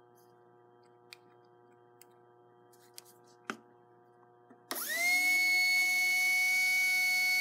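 A few light taps of handling, then about two-thirds of the way in a pancake motor armature spins up on a dynamic balancing rig: a whine that rises quickly and settles into a steady high pitch. This is a test run after a small weight correction, with the armature's bearings freshly oiled.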